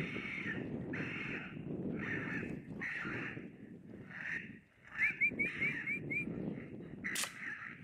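Raccoon squaller call blown over and over in raspy squalls, about one or two a second, imitating raccoon fighting and distress cries to rouse raccoons hiding in a brush pile. About five seconds in, a run of short rising chirps is heard, and near the end a sharp click.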